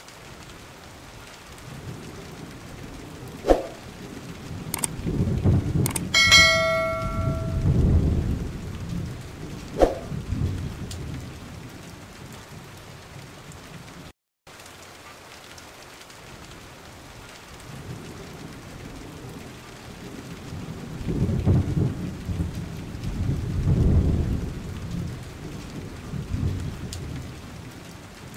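Steady rain with a roll of thunder about five seconds in and another about twenty seconds in. A few sharp clicks and a brief bell-like ring come with the first roll.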